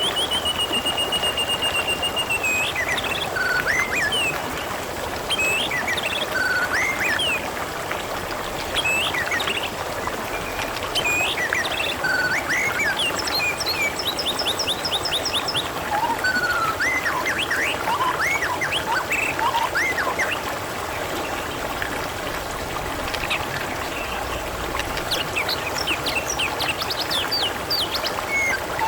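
Water trickling and babbling steadily, with small birds chirping, whistling and trilling over it at intervals, a held whistled note in the first couple of seconds.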